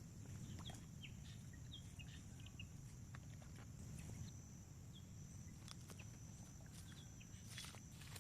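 Faint forest ambience: a steady high-pitched insect drone with scattered short bird chirps and a few light clicks.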